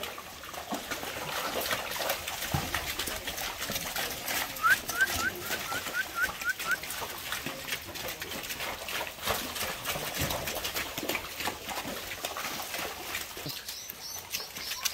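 Zebu cattle hooves sloshing and splashing through a flooded, muddy corral in the rain. About five seconds in, a bird gives a quick run of about eight short rising chirps.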